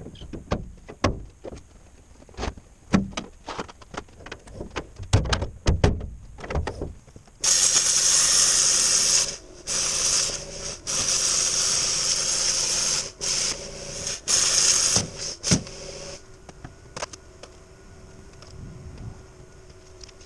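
Several knocks and clanks of metal being handled, then a handheld plasma cutter cutting stainless steel sheet: a loud, high hiss that stops and restarts several times over about eight seconds. A faint steady hum remains after the cutting stops.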